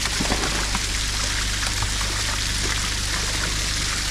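Water splashing and running steadily as netted brown trout are tipped from a stocking tank into the lake, with a few sharp splashes in the first half-second. A low steady hum runs underneath.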